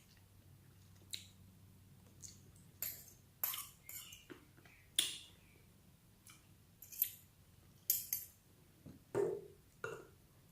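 Eating sounds: cutlery clicking and clinking against a plate, about a dozen short sharp clicks at irregular intervals.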